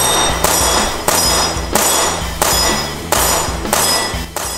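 Outro rock music: a low bass line under heavy percussive hits with a metallic ring, about three every two seconds, fading out near the end.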